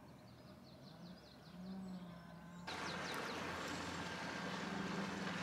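A small songbird trilling, a quick run of about five falling chirps a second. About two and a half seconds in, the sound switches abruptly to louder open-air ambience with more bird chirps over a low steady hum.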